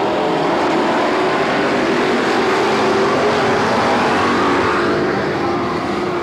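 A field of dirt-track stock cars racing in a pack, their engines running together in one steady, loud drone.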